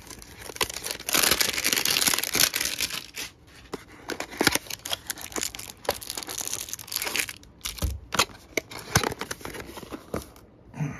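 A cardboard trading-card hanger box being torn open and its plastic-wrapped stack of cards handled: ripping cardboard and crinkling cellophane in irregular bursts, densest about a second in, with a few sharp knocks of the box later on.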